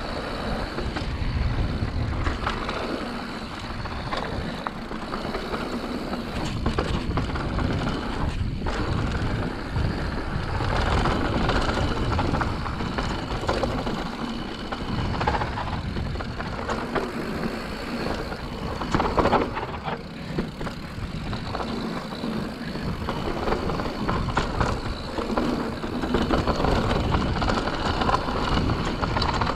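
Mountain bike ridden fast down a dirt singletrack on Maxxis Assegai and DHR II tyres. Wind rumbles on the camera microphone over tyre noise on dirt, and the bike's chain and frame rattle and knock over bumps.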